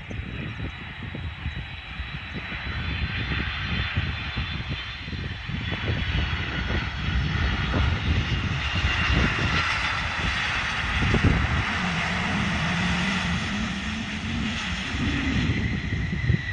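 Jet airliner engines, growing louder over the first several seconds and then holding, with a high whine above a low rumble.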